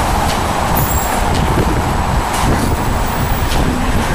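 Steady city street traffic noise with a low rumble and a few short clicks.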